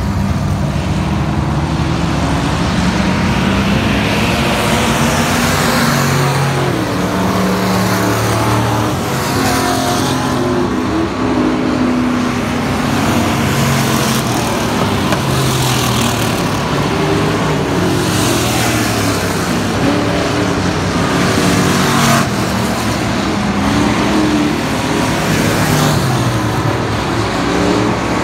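Thunder Bomber dirt-track stock car engines at speed on practice laps, the engine note rising and falling as the cars power through the turns and pass by every few seconds.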